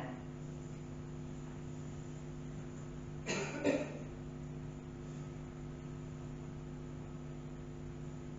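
A single short cough about three seconds in, over a steady low hum.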